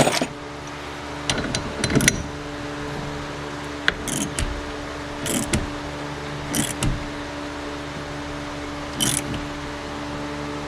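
Short bursts of metallic clicking and scraping from a hand tool tightening the steering-wheel hub's bolt on the column by hand, one burst every second or so, over a steady low hum.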